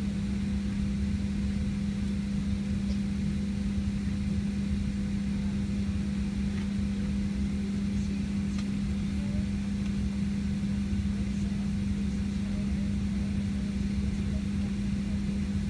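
Steady cabin drone inside a Boeing 737-700 parked at the gate, from the air-conditioning and ventilation, with one strong low hum over a soft rumble and hiss.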